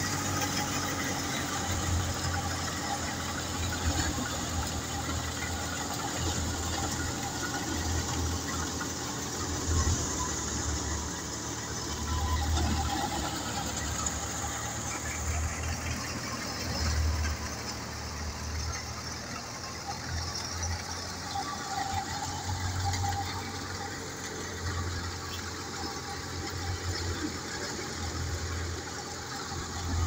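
A tractor-powered wheat thresher running steadily: the tractor engine's low, unevenly pulsing hum under a constant noisy rush from the working threshing machine.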